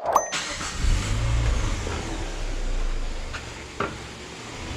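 Citroën C4 engine cranked by the starter and catching straight away, its revs rising briefly, then settling into a steady idle. The valve cover's breather connector is blocked off, and the engine runs without the noise of the faulty valve cover.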